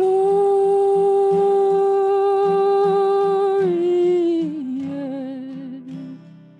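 A solo voice holds one long high note for nearly four seconds, then steps down twice to a lower note with vibrato that fades near the end, over acoustic guitar strumming: the closing cadence of a sung carol.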